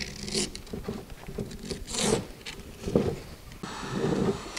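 Utility knife slicing old coated nylon skin away from a wooden kayak cockpit coaming, with the fabric being pulled and peeled off the wood: irregular scraping, rasping and crinkling strokes, the sharpest about two seconds in and about three seconds in.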